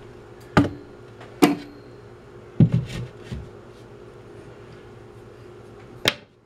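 Shelf board being set onto metal wall brackets: two sharp knocks, then a cluster of duller thumps about two and a half seconds in as it settles, and one more sharp knock near the end.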